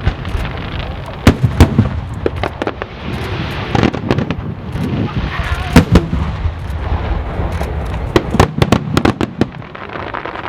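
Aerial display fireworks bursting overhead: a rapid, irregular string of sharp bangs, several of them very loud, over a continuous low rumble.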